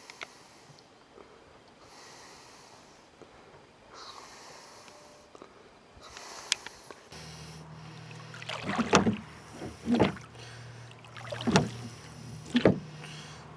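Rowboat on calm water: a soft rush of water about every two seconds, like oar strokes. About halfway through, a steady low hum comes in, along with four loud knocks.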